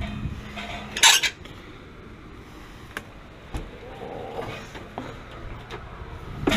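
Metal clattering and clinking: one loud, sharp clatter about a second in, then a few scattered clicks and knocks.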